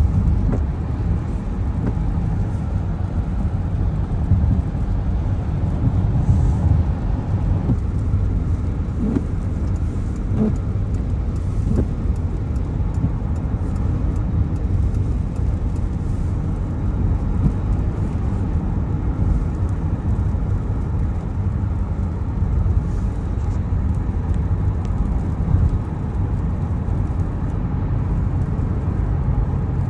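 Car driving on a wet road in the rain: a steady low rumble of tyres and road noise.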